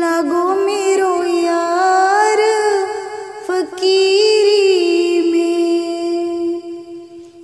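A high singing voice drawing out long held notes of a devotional shabad, the pitch sliding and wavering between notes, and dying away near the end.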